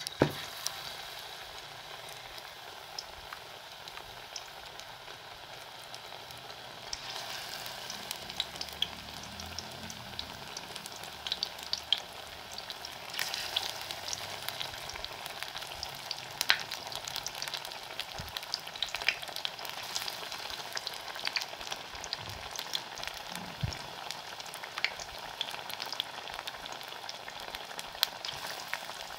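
Besan-coated potato slices deep-frying in hot oil: a steady sizzle dotted with crackling pops. It grows louder about seven seconds in as more slices go into the pan.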